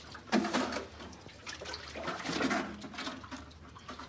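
Water splashing and pouring from a bucket hauled up out of a hand-dug well on a rope. It comes in bursts, the first and loudest starting suddenly about a third of a second in.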